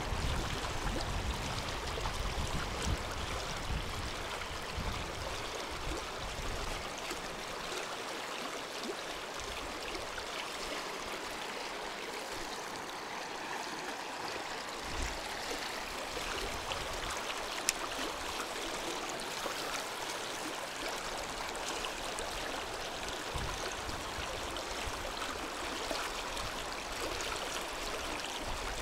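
River water flowing steadily along the bank, an even watery hiss, with a low rumble over the first several seconds.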